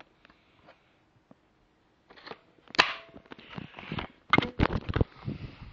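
Handling noise from a plastic airsoft M4 and the camera: a few sharp clicks and knocks with rustling against fabric, starting about two seconds in.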